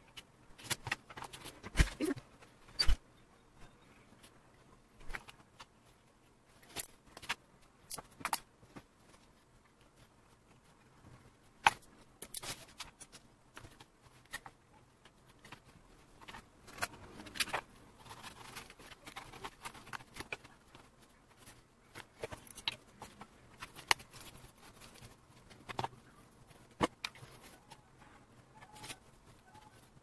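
Irregular small clicks, taps and rustles of metal hand tools and leather pieces being handled on a workbench during leathercraft, with a few sharper clinks standing out.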